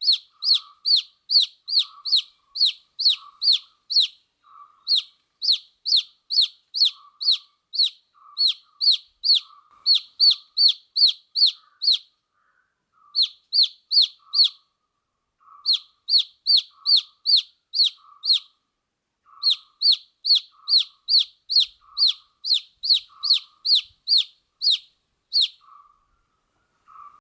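Baby chick peeping: rapid, evenly spaced high peeps that fall in pitch, about four a second, in runs of a few seconds broken by short pauses.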